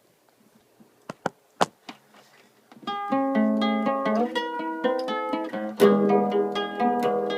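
A few sharp clicks, then about three seconds in a plucked string instrument starts playing a picked instrumental intro, with notes ringing over one another.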